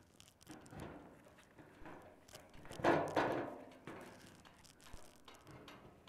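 Left-cut aviation snips cutting sheet metal along a line: a string of short clicks and snips from the blades as a strip of scrap curls off. The loudest cut, about three seconds in, rings briefly.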